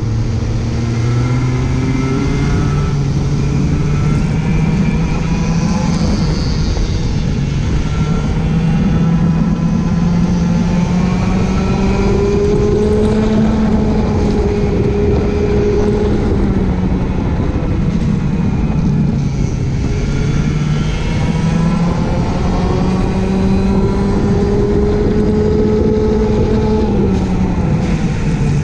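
Racing go-kart engine heard from on board, its pitch climbing slowly along the straights and dropping quickly as it backs off for corners, several times over. A steady rushing hiss runs underneath.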